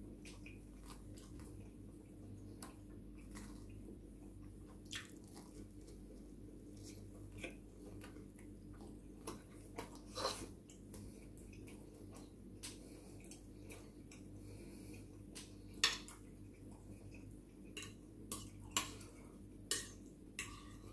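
Metal fork clinking and scraping against a ceramic plate in scattered taps, with quiet chewing between them. The loudest clink comes about three-quarters of the way through, followed by several more near the end, over a low steady hum.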